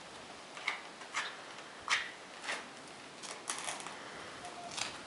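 A few short, light scrapes and taps, scattered about once every half second to a second, from a horse being handled and groomed.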